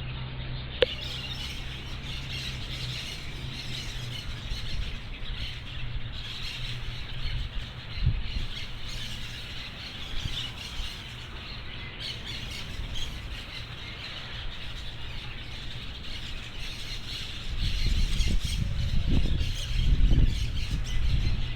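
Wild parakeets calling in the trees, many overlapping high calls. A low rumble grows louder for the last few seconds.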